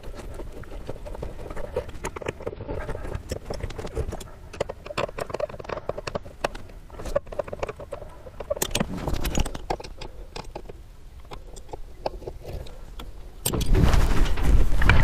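Irregular clicks, clinks and knocks of hand tools and small metal parts being handled as a shore power connector is taken apart. Near the end a louder steady noise sets in abruptly.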